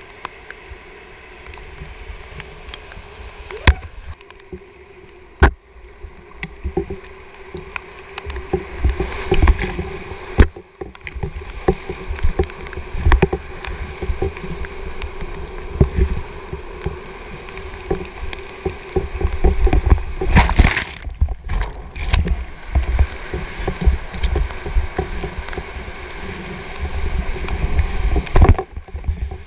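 Whitewater rushing and crashing through a steep rocky rapid as a kayak runs it, heard up close from a camera on the paddler, with water slapping and splashing, sharp knocks, and a low buffeting rumble. The sound cuts out briefly a few times.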